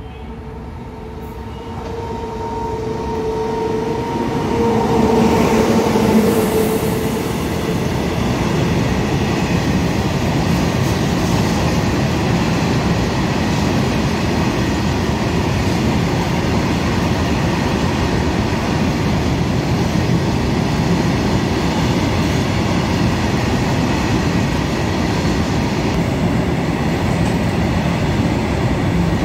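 A WAG-9HC electric freight locomotive's horn sounds for about six seconds as it nears at speed, then a long train of covered freight wagons rolls past with a steady rumble and clatter of wheels on the rails.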